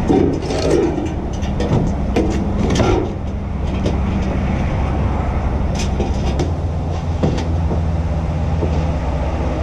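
Truck diesel engine idling steadily, with sharp knocks and clanks as a clearance bar is handed up and laid on the truck's deck, mostly in the first three seconds and a couple more later.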